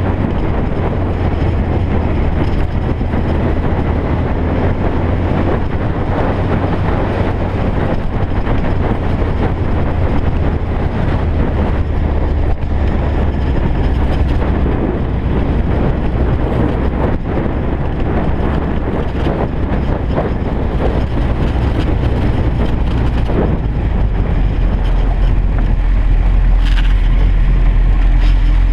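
Sportbike engine running steadily at low revs while riding slowly on a gravel road, with the crunch and ticking of loose gravel under the tyres. Near the end the engine note drops lower.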